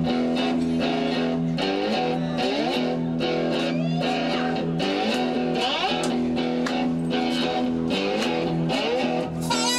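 A live blues band playing, led by a cigar box guitar whose notes slide up in pitch again and again over a steady low note and an even drum beat. A harmonica comes in right at the end.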